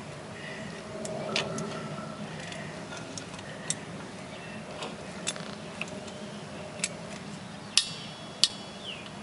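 Scattered metallic clicks and clinks of locking C-clamp vise grips on a 2005 Cadillac DeVille's front brake caliper, squeezing the caliper piston back a little at a time. Two sharper clinks near the end ring briefly.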